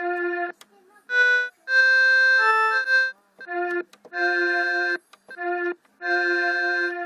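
Casio electronic keyboard sounding a series of short held chords, each cut off after about half a second to a second, with brief gaps between them. About a second in, a short run of changing notes comes in.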